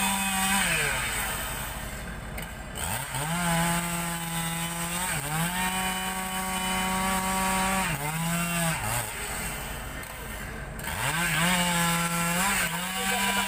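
Husqvarna 395 two-stroke chainsaw cutting rubber-tree logs, its engine running up to full speed and holding a steady high note for several seconds at a time. It drops back twice, about a second in and again around eight to nine seconds, and runs up again after each drop.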